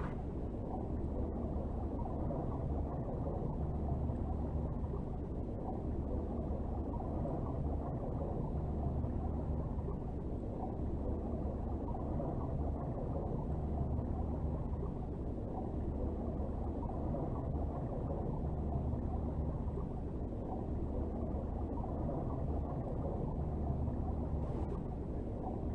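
Homemade underwater drowning sound effect: a continuous deep, muffled rumble with no high sounds, its low end swelling and easing every couple of seconds.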